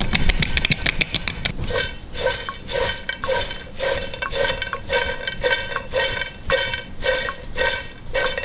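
Covered metal pot of freshly popped, seasoned popcorn being shaken, the popcorn rattling against the pot and lid with a ringing metallic clatter. The shakes come in a steady rhythm of about two to three a second, starting about two seconds in.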